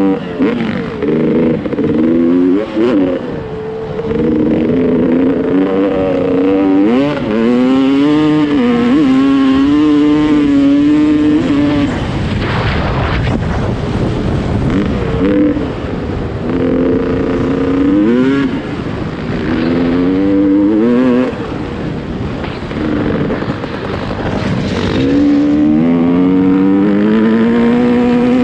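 Off-road motorcycle engine being ridden hard, revving up and falling back over and over as the rider climbs through the gears and backs off.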